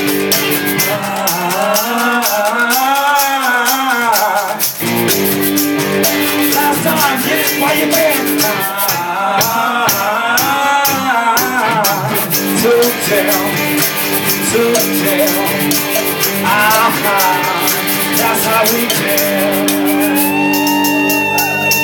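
Live band jam: guitars and sustained low notes over a steady, fast rattle of hand percussion.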